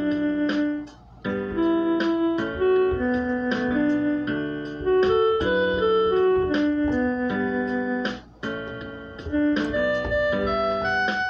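Electronic keyboard in a piano voice playing a simple melody one note at a time, with two brief pauses, about a second in and about eight seconds in, heard through a Boya BY-MM1 on-camera shotgun microphone.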